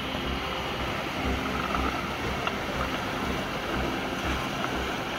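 Fast-flowing floodwater rushing in a steady torrent, with wind buffeting the microphone in low, uneven thuds.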